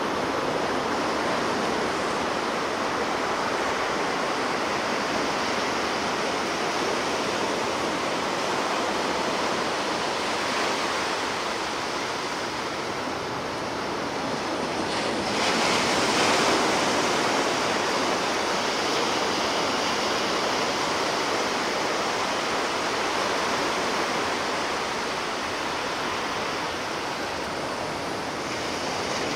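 Ocean surf: a continuous wash of breaking waves, with a wave swelling louder about halfway through.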